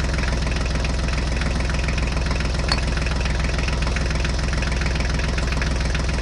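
Tractor engine idling steadily, with a fast even pulse.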